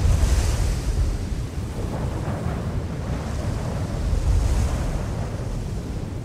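Wind buffeting the microphone: a steady low rumble with no bird calls, swelling in gusts about half a second in and again after about four seconds.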